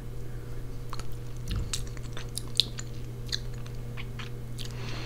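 Close-miked chewing of a mouthful of pernil (roast pork): irregular clicks and crunches from the mouth, the sharpest about halfway through, over a steady low hum.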